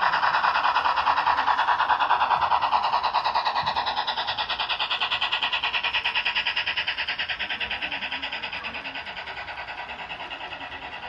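Model train led by a Union Pacific Big Boy steam locomotive model rolling past with its passenger cars: a fast, even rasping rhythm from wheels and drive on the track, loudest in the first few seconds and slowly fading as the train moves on.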